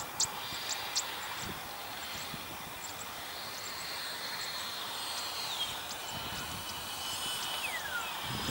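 Electric ducted fans of an XFly J-65 model jet whining thinly in the distance. The whine steps down in pitch twice, about five and a half and seven and a half seconds in, as the throttle comes back on the landing approach.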